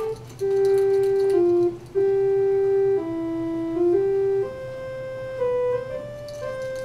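A simple tune played slowly on a small instrument, one steady held note at a time. The notes move in small steps and climb a little toward the end, and the playing grows softer about halfway through.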